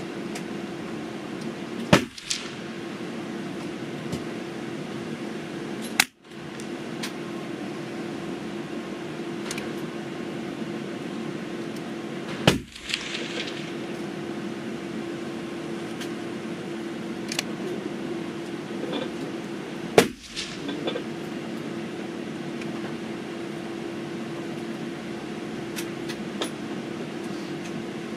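Pedersoli Black Widow .22 LR rifle firing four shots of a five-shot group with SK ammunition, spaced roughly four to eight seconds apart, with faint small clicks between some of the shots. A steady low hum runs underneath.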